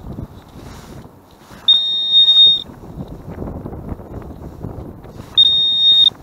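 Metal detector's target tone sounding twice over a buried metal object: a steady high beep about a second long, then another just under a second long near the end. Low scuffing and crunching of boots on wet shingle in between.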